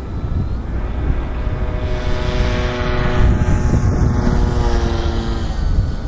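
ParkZone Bf-109G electric RC model plane with a two-blade propeller flying past: its motor-and-propeller whine grows louder, dips slightly in pitch and fades out about five and a half seconds in. A steady rumble of wind on the microphone runs underneath.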